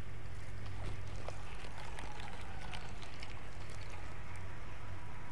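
A small bass being reeled in on a baitcasting reel, with scattered light splashes and clicks over a steady low hum.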